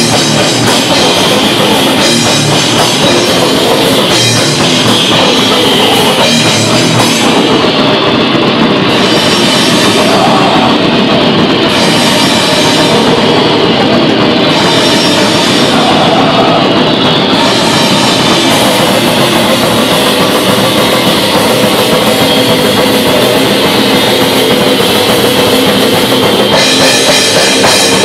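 A live metal band playing loudly: distorted electric guitar over a drum kit with cymbals. The cymbals drop out briefly several times around the middle.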